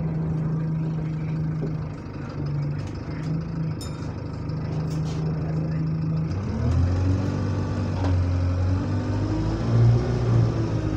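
Bus engine heard from inside the passenger saloon, a steady moaning drone; about six seconds in the engine note picks up and rises as the bus accelerates.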